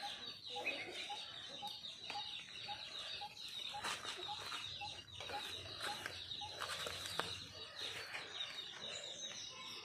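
Faint outdoor bird sounds: chickens clucking, and a short note repeated evenly about two to three times a second that stops about two-thirds of the way through. A steady high-pitched drone runs underneath.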